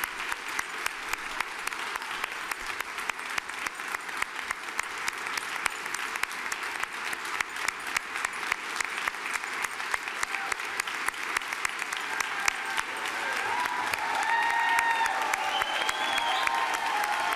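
A large crowd applauding steadily, a dense patter of many hands clapping. In the last few seconds the clapping swells a little and a few voices call out over it.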